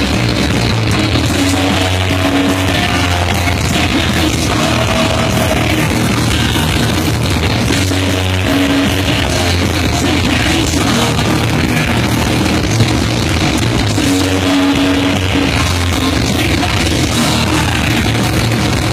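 A live rock band playing heavy rock through a large PA, loud and steady. It is heard from right in front of the big speaker stack, so the sound is harsh and muddy.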